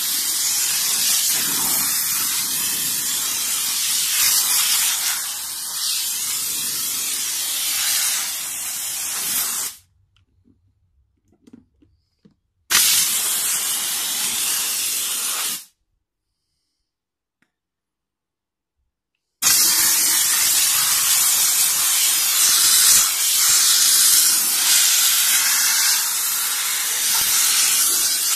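Jet of a handheld steam-cleaning gun hissing loudly as it blasts steam onto a car's door sills and wheel arch. The hiss comes in three long stretches, cutting off suddenly twice for a few seconds of near silence.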